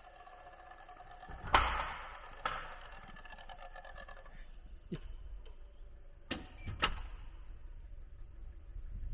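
A door knocking, one loud knock and a lighter one about a second later, over a steady hum of several tones that stops a little past halfway. A few sharp clicks follow, and then a low rumble of wind on the microphone.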